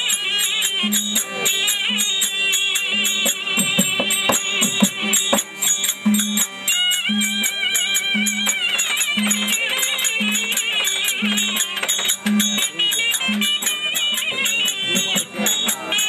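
Therukoothu folk-theatre accompaniment, instrumental: a high reed melody that wavers and bends, over quick, steady small-cymbal strikes and a low drum beat about once a second.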